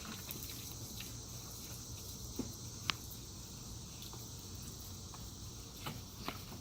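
Steady high-pitched chorus of insects such as crickets, with a few faint clicks and taps.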